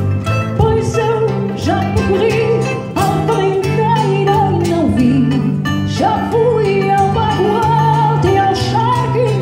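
Live fado: a woman sings long, wavering melodic phrases over plucked Portuguese guitar and classical guitar accompaniment.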